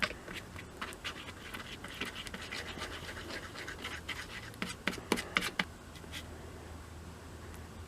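Scratching and light clicks of hand work on a hatchet's handle scales, with a cluster of sharper clicks about five seconds in.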